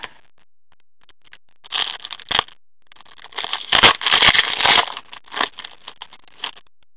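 Wrapper of a hockey card pack being torn open and crinkled by gloved hands: bursts of crinkling about two seconds in, loudest around four seconds, with a few sharp clicks, dying away near the end.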